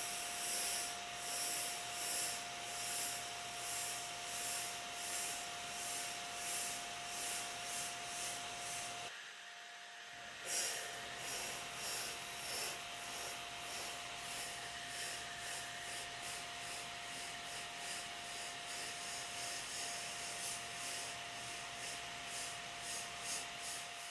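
Sandblasting gun in a blast cabinet hissing as abrasive blasts rust off a steel hammer head, with a steady high tone under the hiss. The blast pulses about twice a second and drops out briefly about nine seconds in before starting again.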